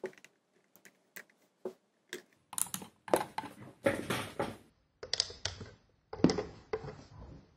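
Small screwdriver prying and scraping at the rubber screw covers on the plastic underside of an ASUS ROG Gladius III Wireless mouse, with the mouse shifting in the hands: light plastic clicks and taps, a few spaced ones at first, then quick clusters from about two and a half seconds in.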